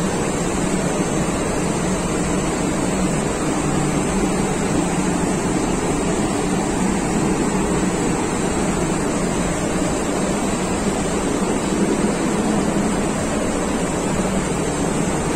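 Steady, loud machinery drone with a low hum, unchanging throughout: the background noise of running engines and ventilation in a ship's engine room.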